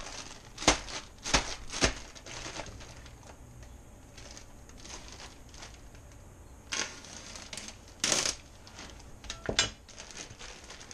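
A plastic bag of shredded coleslaw mix crinkling as it is pulled open and emptied into a metal mixing bowl. Three sharp snaps of the plastic come in the first two seconds, and louder bursts of crinkling come later as the bag is shaken out.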